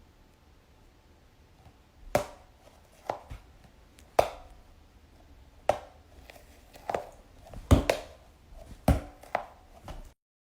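Novelty toy balls striking a hard surface: about a dozen sharp, irregular knocks, each with a brief ring, starting about two seconds in and stopping abruptly near the end.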